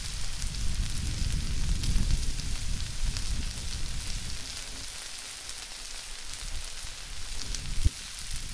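American Wagyu steak strips and vegetables sizzling on a hot Blackstone flat-top griddle, a steady crackle throughout, with a low rumble over the first few seconds. A single sharp knock comes near the end.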